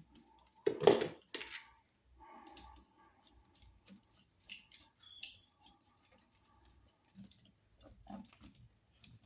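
Small clicks, scrapes and taps of hands and a screwdriver working a wall receptacle's terminal screw and copper wire, with a louder knock about a second in and another just after it.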